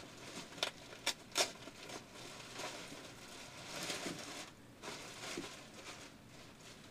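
Clear plastic bag crinkling and rustling as hands open it and move the vegetables inside, with a few sharp crackles in the first second and a half.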